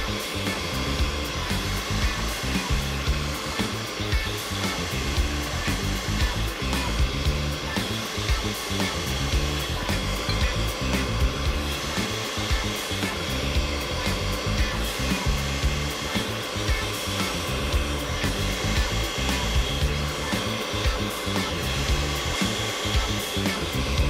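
Electric food processor running steadily, its blade chopping white fish fillet and bulgur into a kofta paste; a continuous motor noise with a steady whine.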